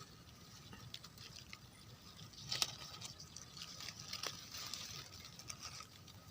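Faint rustling and light crackles of dry leaf litter and twigs, with a few sharper snaps, the clearest about two and a half seconds in.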